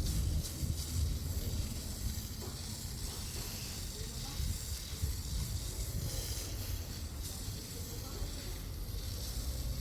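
Steady hissing noise over a low rumble.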